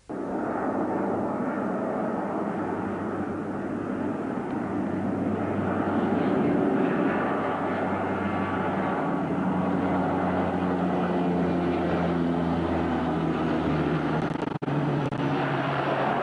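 Steady engine drone with a few held low tones that shift down in pitch, cut by a brief dropout near the end.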